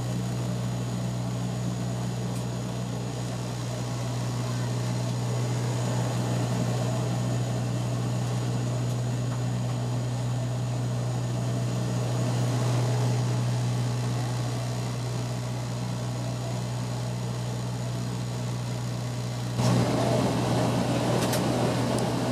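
Bombardier Dash 8-100 turboprop heard inside the cabin beside the propeller: a steady low propeller drone and hum under a constant airflow hiss. Near the end the noise suddenly gets louder and a few clicks follow.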